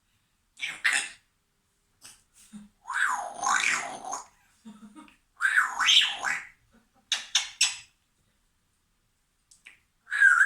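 Pet parrot imitating a coffee machine: a string of short, harsh, noisy bursts, a few quick clicks about seven seconds in, and a brief whistled note at the very end.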